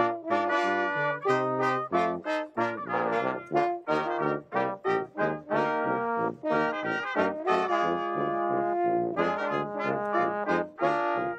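A brass band with trumpets and trombones playing a Christmas tune: a run of short, separated notes, then longer held chords about two-thirds of the way through.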